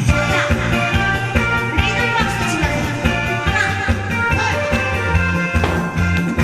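Upbeat music with a steady bass beat and sustained melody lines, as played for a stage performance.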